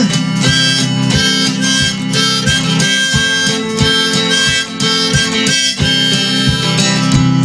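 Harmonica playing a melody over strummed acoustic guitar in an instrumental break of a folk-style song.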